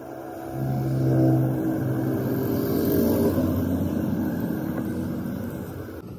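A vehicle engine running close by. It comes up about half a second in and fades away near the end.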